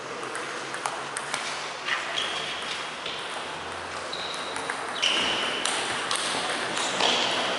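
Table tennis balls clicking off bats and tables in an irregular patter, echoing in a large gym hall, with several short high-pitched squeaks, the loudest about five seconds in.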